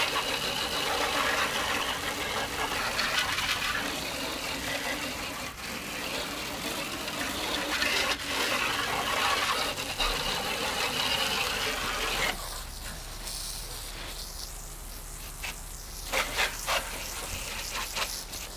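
Garden hose spray wand jetting water onto a plastic folding table, hosing it down in a steady hiss. About twelve seconds in, the spray drops to a quieter rinse, with a few short splashy bursts near the end.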